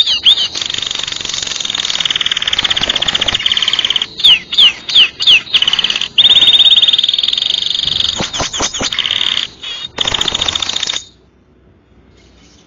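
Canary singing: long, very fast rattling trills that sound like machine-gun fire, broken by a few quick falling whistles. The song stops abruptly near the end.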